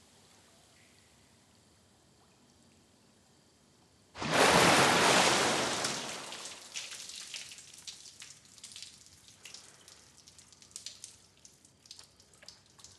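A few seconds of quiet, then a sudden big splash of swimming-pool water about four seconds in, fading into scattered drips and splatters of falling water.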